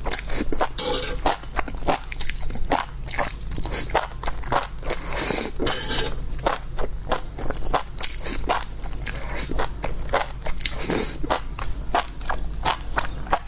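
Close-miked chewing and crunching of food: a dense, irregular run of sharp crisp crackles and clicks, over a steady low hum.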